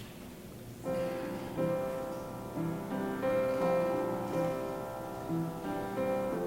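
Instrumental music starts about a second in: slow, sustained chords under a melody.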